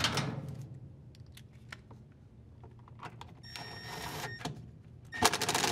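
Cordless drill/driver spinning a screw in, in two short runs with a steady whine, about three and a half seconds in and again near the end, the second one louder. Before that, handling rustle and small clicks as the ground wire's ring terminal is fitted over the screw.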